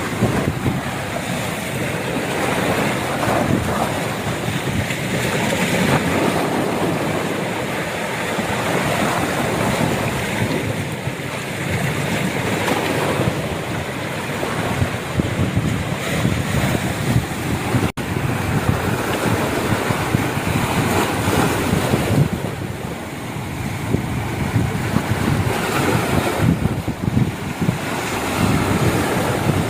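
Sea surf washing and breaking against shore rocks, with wind buffeting the microphone.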